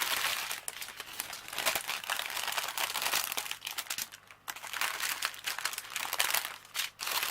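Small plastic bags of diamond painting drills being handled and shuffled, crinkling in irregular crackles with a couple of short pauses.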